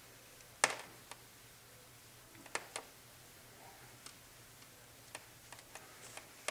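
Marker writing on paper: a few short taps and scratchy strokes of the tip, the loudest about half a second in, over a faint steady hum.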